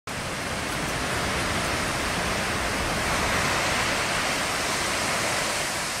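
Heavy ocean surf breaking over a sea-pool wall: a steady rush of churning white water, swelling a little around the middle.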